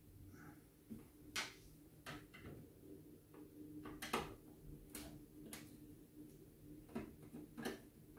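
Screwdriver turning screws out of a metal PC case frame: faint, irregular sharp clicks of the tool against the screws and frame, about nine over eight seconds.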